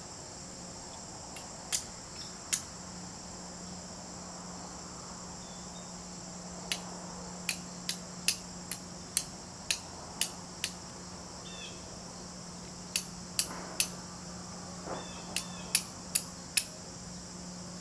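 Flint struck with a steel striker to throw sparks onto char cloth: sharp metallic clicks, a couple early on and then in several quick runs of about two strikes a second with short pauses between, repeated strikes while trying to catch an ember. Insects trill steadily behind.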